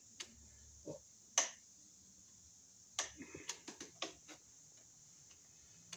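Small sharp clicks and light knocks of a screwdriver working the terminal screw of a plastic 30-amp RV receptacle held in the hand, tightening the wire under it: a few single clicks in the first second and a half, then a quick cluster of clicks about three to four seconds in.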